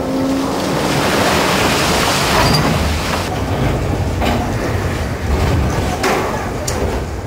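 Loose coal pouring and sliding with a steady, loud rushing, strongest about two seconds in, and a few sharp knocks in the second half.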